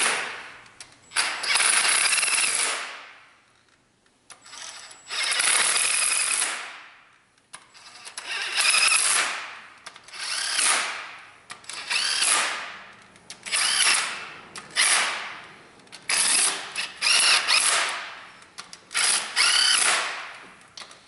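Cordless power tool spinning new cylinder head bolts down into a Toyota 2AZ-FE engine block to snug them before torquing, in about ten short whirring runs one after another, one per bolt. The first runs are the longest.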